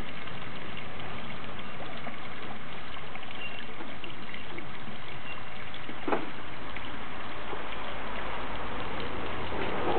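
Steady trickle of running water in a garden pond, with one short, louder sound about six seconds in.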